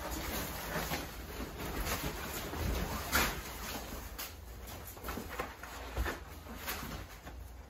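Household goods being wrapped and packed by hand: irregular paper rustling and items knocking as they are handled and set down, with the sharpest knock about three seconds in.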